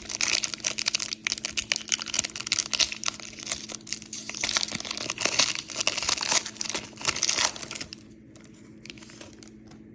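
Foil wrapper of a baseball card pack crinkling and tearing as it is ripped open, a dense crackle that dies down about eight seconds in.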